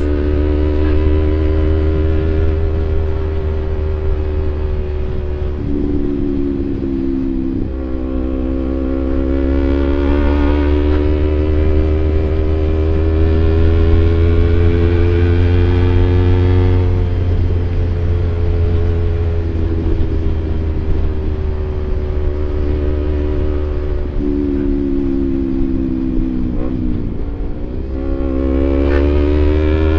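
Kawasaki Ninja 250 FI parallel-twin engine heard through a CLD Monster Racing aftermarket exhaust while riding at low revs. The engine note climbs slowly and drops back at several gear changes, about six, eight, seventeen, twenty-four and twenty-eight seconds in, over a steady low wind rumble on the microphone.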